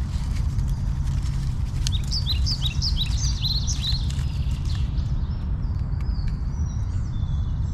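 Steady low wind rumble on the microphone, with a small bird chirping rapidly over it for a few seconds in the middle, short falling notes repeated several times a second.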